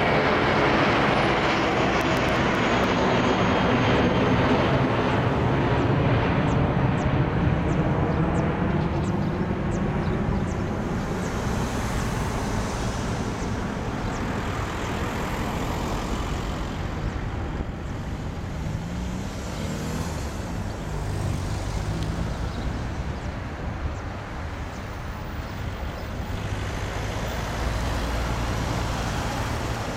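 Jet noise of a twin-engine Airbus A320-family airliner climbing away after take-off, loud at first with a sweeping, phasing tone, then slowly fading as it recedes. Road traffic comes up near the end.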